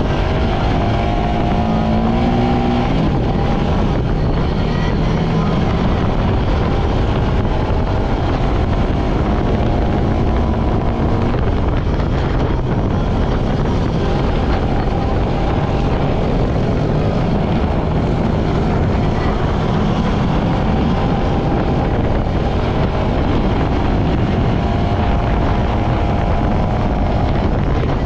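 Quad bike (ATV) engine running steadily as it rides along a sandy dirt trail, with a constant rush of noise and an engine note that shifts slightly in pitch.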